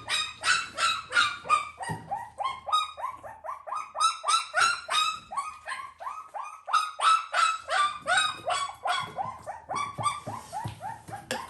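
Newborn puppy, eyes not yet open, crying in short high yelps about three times a second without a break.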